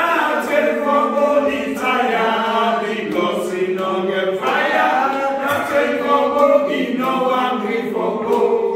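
A small group of voices singing a song together unaccompanied: a railway song that Sierra Leonean schoolchildren sang on the steam-train journey to Bo.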